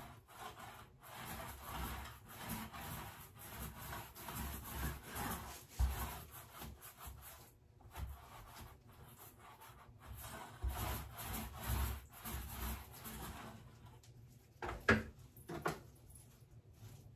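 Paintbrush stroked back and forth over a wooden surface, a steady run of rubbing strokes that pauses midway and resumes, with a few sharp taps near the end.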